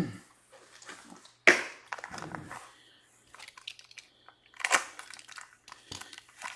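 A trading card being handled and put into a plastic magnetic one-touch card holder: scattered plastic rustles and taps, with sharp snaps about a second and a half in and again near five seconds.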